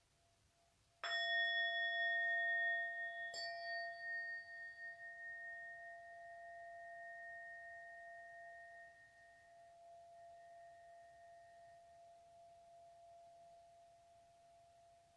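Tuning forks struck twice, about a second in and again a couple of seconds later, each leaving clear ringing tones at several pitches that fade slowly, wavering as they beat against each other.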